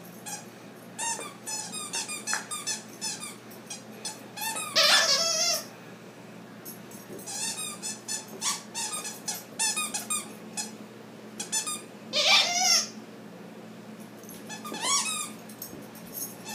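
A dog's squeaky toy squeaking again and again as the dog chews it, in quick runs of short squeaks, with longer, louder squeals about five, twelve and fifteen seconds in.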